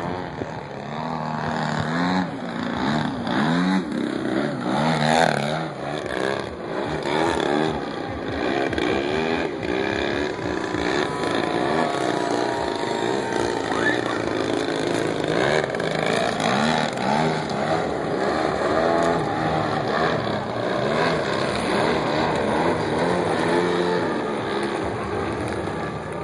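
Large RC model airplane's engine running in flight, its pitch rising and falling over and over as it throttles and passes by.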